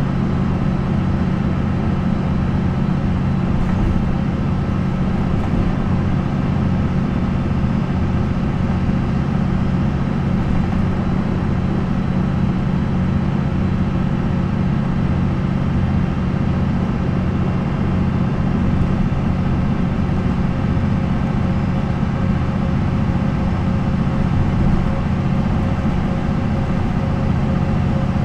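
MAN NL 263 city bus with a MAN D28-series diesel engine, running at a steady engine speed with a deep, even drone and no revving up or down.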